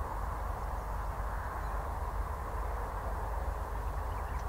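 Steady outdoor background noise: a low, even rumble with no distinct events.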